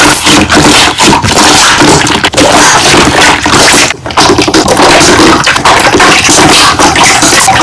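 Slime being squeezed and pressed, its trapped air bubbles popping in a loud, dense run of crackles and pops, with a brief pause about four seconds in.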